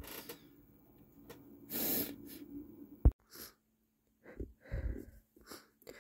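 A man's stifled sneeze: a short hissing burst forced through a closed mouth about two seconds in. Then a sharp click, followed by several short catching breaths.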